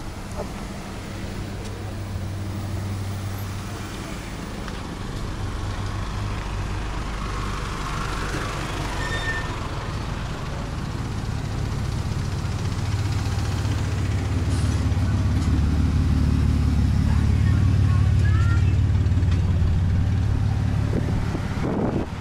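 Street traffic: car and SUV engines running as vehicles drive slowly past close by. The rumble grows louder in the second half and falls off near the end.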